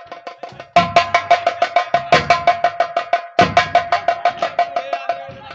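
Fast drumming on a high-tuned drum, about seven ringing strokes a second at one steady pitch, with a deep drum hit about every second and a half. It starts softer and jumps louder with the first deep hit, just under a second in.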